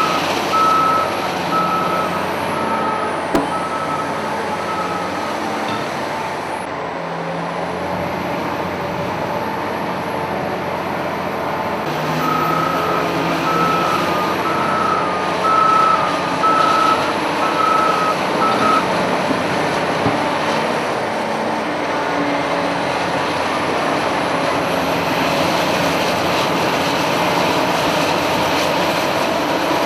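Caterpillar 992K wheel loader's diesel engine running steadily. Its reversing alarm beeps a little over once a second in two spells: for about six seconds at the start, and again for about seven seconds around the middle.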